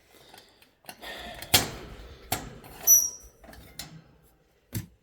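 Cockatoo knocking and clicking about its cage and food dish, with several sharp knocks spread over the seconds and one short high squeak about three seconds in.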